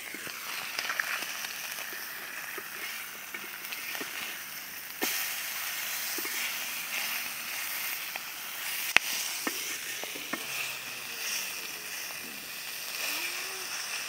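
Masala-coated murrel fish frying in oil on a flat iron pan, a steady sizzle. A metal spatula clicks and scrapes against the pan a few times, sharpest about nine seconds in.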